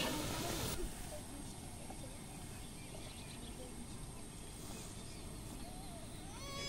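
Boondi batter frying in hot oil, a loud hiss that cuts off suddenly about a second in. Then quiet open-air background with faint bird chirps, and near the end a long, high-pitched held call.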